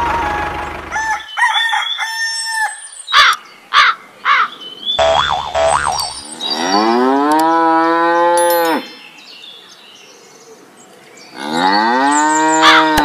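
Cow mooing: two long moos, one from about six seconds in and another near the end. They follow a few short tones and sharp clicks in the first few seconds.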